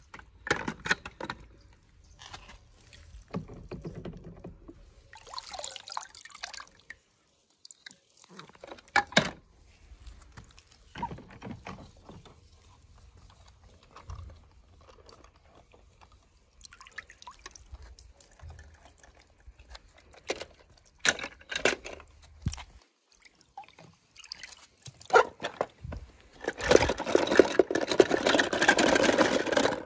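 Water dripping and splashing, with scattered short knocks, and a louder stretch of pouring water over the last few seconds.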